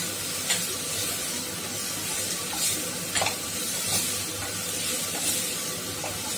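Shredded cabbage, carrot and onion sizzling steadily in a pan on a low flame, stirred with a wooden spatula that scrapes across the pan a handful of times at irregular moments.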